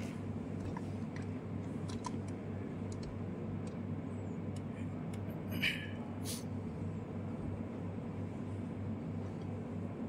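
Faint clicks and one short scrape a little past halfway, from hands working parts inside an axial piston pump casing, over a steady low hum.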